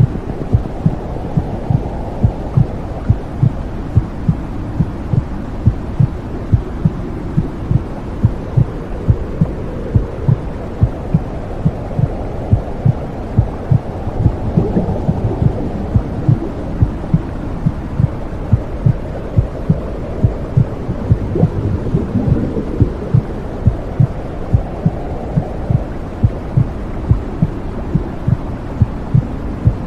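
Womb sound: a muffled heartbeat thumping in an even rhythm over a steady low whooshing, like blood flow heard from inside the womb.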